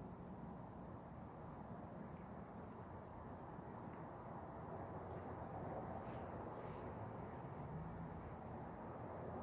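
Tara ceiling fan coasting down after being switched off, a faint steady hiss of moving air, with a thin high-pitched whine held throughout.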